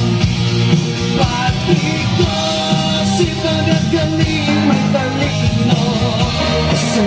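A loud song: singing over a band backing with a steady beat.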